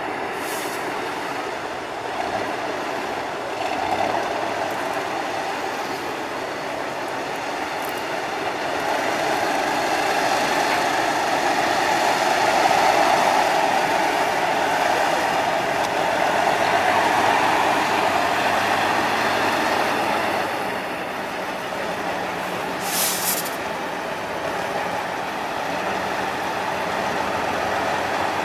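Tatra 813 8x8 trial truck's diesel engine running under load as it crawls over a sandy slope, swelling louder in the middle. There is a short sharp hiss about half a second in and another near the end.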